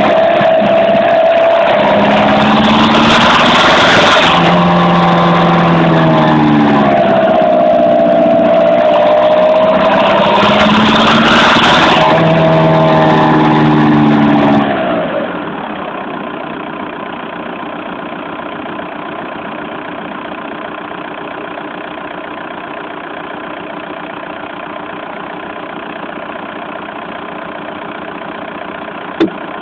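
Volkswagen Golf Mk4's 1.9 TDI four-cylinder diesel engine revving, its pitch rising and falling several times, then about halfway through dropping to a steady, quieter idle. A single short click near the end.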